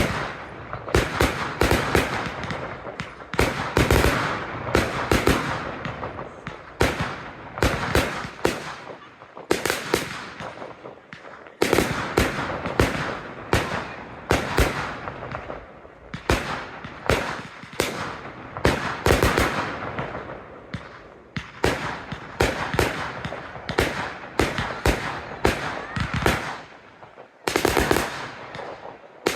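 Professional fireworks display: shells bursting in rapid volleys of sharp bangs, several a second, with crackling between them and short lulls twice.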